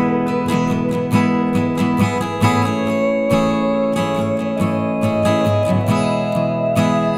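Background music: acoustic guitar strumming with a steady rhythm.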